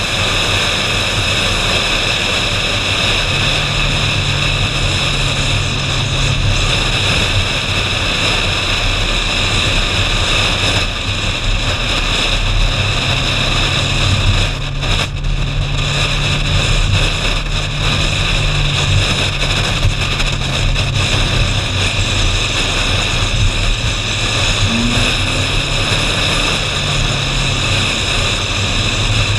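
Ferrari 458 Spider's 4.5-litre V8 running steadily as the car drives, its note stepping up and down a few times, under heavy wind and road noise on an outside-mounted camera. The sound dips briefly about halfway through.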